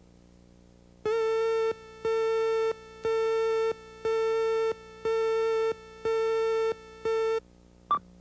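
Electronic beep tone sounded seven times at about one per second, each a steady buzzy pitch lasting most of a second, the last one cut short. A brief higher blip follows near the end.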